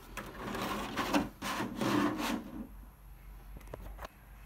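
Thin clear lexan RC car body shell being handled while a 3D-printed plastic roll cage is fitted inside it: plastic rubbing and scraping for a couple of seconds, then a few light clicks.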